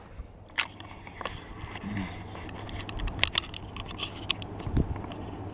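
Cardboard model-kit box being handled: scattered light taps, clicks and scrapes as hands move and set down the box.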